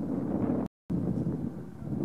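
Wind buffeting the microphone: a rough, low rumble, broken by a brief total dropout just under a second in.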